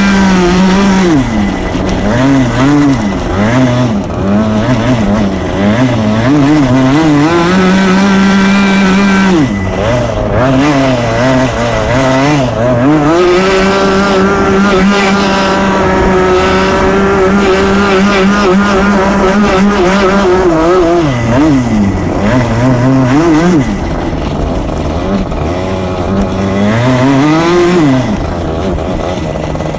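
125cc two-stroke kart engine heard from onboard at racing speed: it holds a high, steady pitch at full throttle on the straights, and its revs drop and climb back up again and again through the corners.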